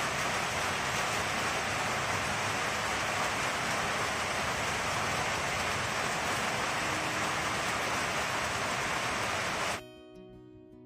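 A steady, loud hissing noise, even throughout, that cuts in suddenly and stops suddenly about ten seconds in.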